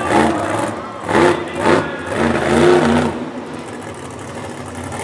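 Monster truck engine revving in two short blips about a second in, then rising and falling once more before settling to a lower, steady run.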